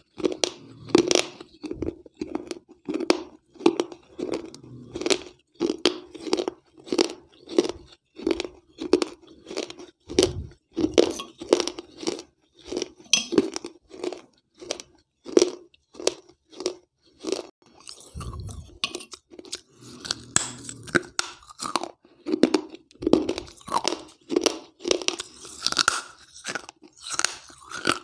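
Close-miked chewing of soaked baked-clay pieces from a wet clay piggy bank (gullak): a steady run of crunches, about two a second.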